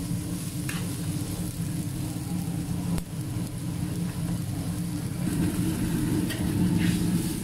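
Fava beans and minced pork sizzling in a hot wok while a metal spatula stirs and scrapes through them, with a few short scrapes standing out. A steady low hum runs underneath and grows louder about five seconds in.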